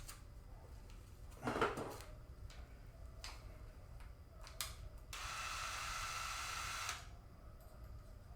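Cordless drill spinning for about two seconds, starting a pilot hole through a motherboard standoff hole, after a few light clicks of handling.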